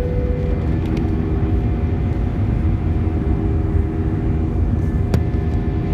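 Airliner's engines and rumble heard from inside the cabin during takeoff: a steady low rumble with several steady engine tones over it. A single sharp click about five seconds in.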